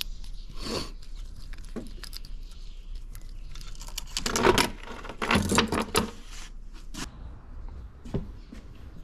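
Light metallic clinks and rattles with a few scraping, rustling stretches, loudest about four to six seconds in: bicycle parts being handled during reassembly.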